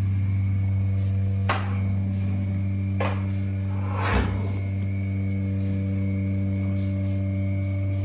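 Milking machine running with a steady low hum while the clusters milk the cows. Three short clicks or knocks sound over it in the first half.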